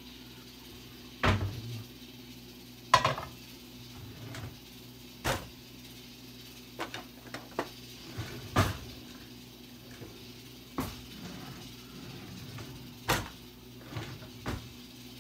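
Kitchen clatter: about a dozen separate sharp knocks and clunks as a metal wok is set on the gas stove's grate and cupboards or drawers are opened and shut.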